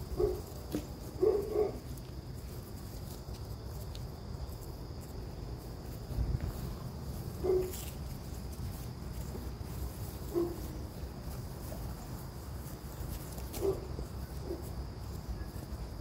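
Puppies giving short, high whines about six times, two of them close together in the first two seconds. Behind them is a steady, high insect drone.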